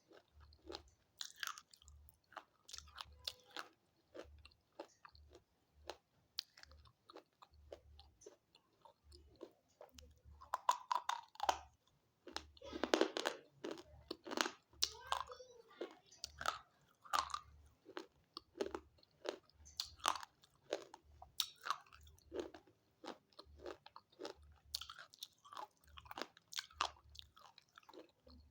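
A person biting and chewing hard, chalky mineral sticks close to the microphone: an irregular run of sharp crunches and clicks, thickest and loudest about halfway through.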